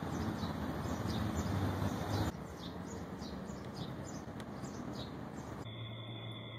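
Steady rushing background noise with small birds chirping about twice a second. Near the end the chirps stop and a steady humming drone of held tones takes over.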